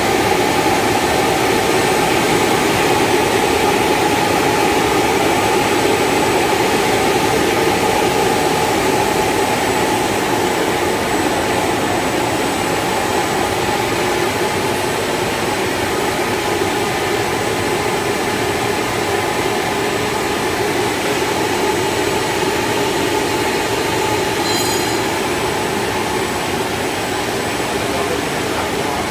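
Steady, loud running noise of a twin-head HDPE blown film extrusion line, KS-FE55S: motors, air-ring cooling air and winding rollers together, with a few constant hum tones. A brief high chirp sounds near the end.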